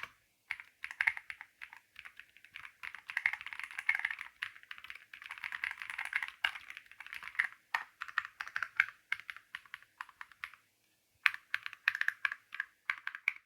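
Typing on an Ajazz AK820 Pro mechanical keyboard: a rapid, uneven run of key clicks and clacks, busiest in the middle, with a brief pause near the end before the typing resumes.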